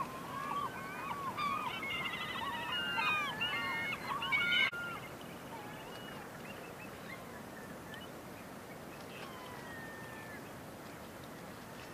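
Many birds calling over one another in a steady run of short arched calls, which stops at a cut about five seconds in. After the cut there is only a faint steady hiss and an odd distant call.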